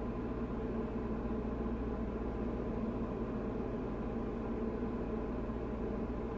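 Diamond DA40 single-engine airplane's engine and propeller running steadily on final approach, heard from inside the cockpit as an even drone.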